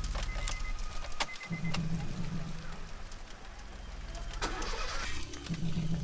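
Car ignition key clicking as it is turned, then a small hatchback's engine starting and running.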